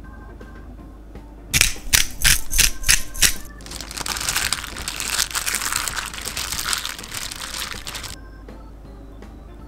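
About seven short, sharp strokes as black pepper is dispensed over raw oysters in a bowl. Then a plastic-gloved hand mixes the oysters, with about four seconds of steady crinkling and squelching that stops abruptly.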